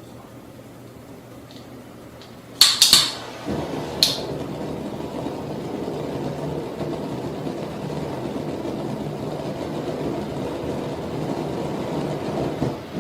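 A few sharp clicks, then a steady rushing rumble from a flame vortex burning that keeps on to the end.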